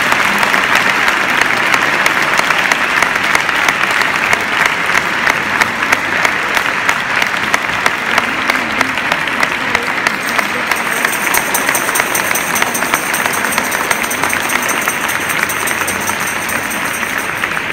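Audience applauding steadily, a dense mass of clapping that eases off slightly near the end. A thin, steady high-pitched tone sets in about ten seconds in.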